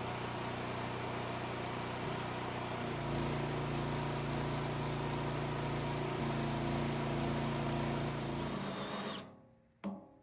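Stick (arc) welding on a steel gas tank seam: the arc crackling and hissing steadily, with a low hum that grows stronger about three seconds in. The welding stops near the end, followed by a brief burst of another sound.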